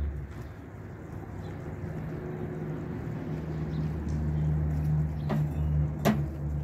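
An engine running steadily with a low hum, growing a little louder, and two sharp knocks near the end.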